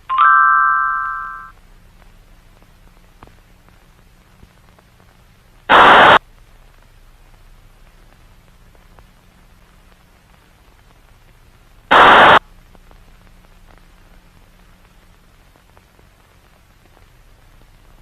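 A short electronic tone that fades over about a second, then two loud bursts of static, each about half a second long and about six seconds apart, cutting off sharply. A faint low hum runs underneath.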